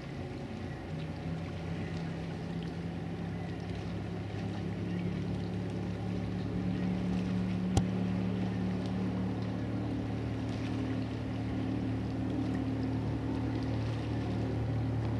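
Motorboat engine running steadily at speed across the water, a low hum that grows slowly louder as the boat comes nearer. A single sharp click about eight seconds in.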